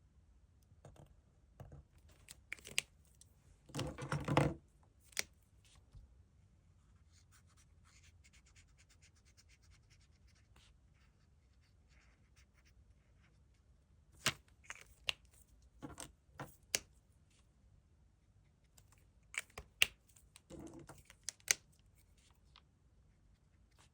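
Pen strokes and paper handling: scattered scratches and sharp clicks. There are short rustles of paper, the loudest about four seconds in and another near the end, and a stretch of faint, fast, fine ticking in the middle.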